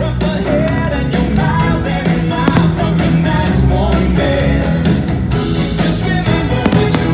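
Upbeat rock-style song with a singing voice and guitar, the loud soundtrack of a fireworks show.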